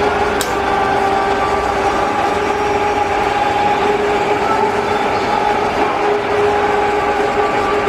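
Steady machine drone with a constant hum, like machinery running in a workshop; one sharp click about half a second in.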